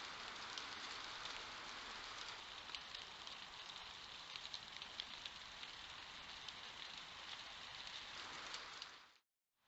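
Steady hiss from a trail camera's microphone, with faint scattered crackles, that cuts out abruptly about nine seconds in.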